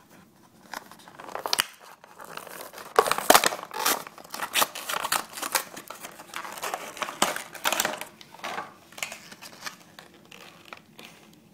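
Clear plastic blister pack and its cardboard backing being pried and torn open by hand, crinkling and crackling in irregular sharp bursts that start about a second in and thin out near the end.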